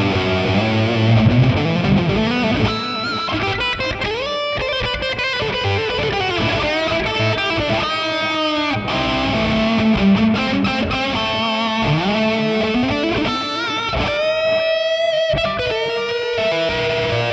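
Distorted electric guitar lead solo through the Amped Dual plugin, a model of a 2000s Mesa Boogie Dual Rectifier on channel 3 in vintage mode. It runs as fast lines with string bends and slides, and long held notes with vibrato.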